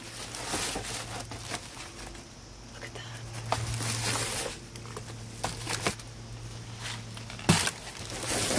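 Plastic garbage bags rustling and crinkling as hands dig through them, with scattered small clicks and a sharp knock about seven and a half seconds in. A steady low hum runs underneath until the knock.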